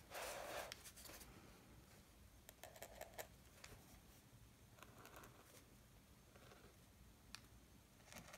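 Faint taps and light scratches of a Posca paint-marker tip dabbing dots onto a colouring-book page, with a brief louder brushing sound at the very start.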